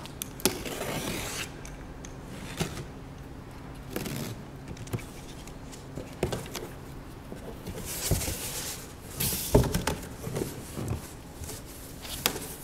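Utility knife slitting the packing tape along a cardboard box's seam, then the cardboard flaps being pulled open, with scraping, rubbing and scattered knocks; the loudest knock comes about nine and a half seconds in.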